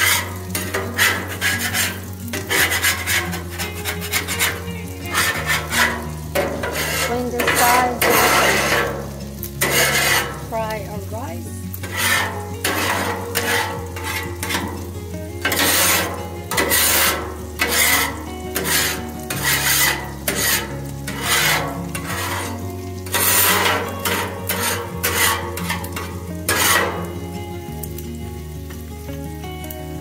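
Metal spatula scraping in repeated strokes across the steel plate of a hot Blackstone flat-top griddle, with food sizzling; the scraping stops shortly before the end. Quiet background music with low bass notes runs underneath.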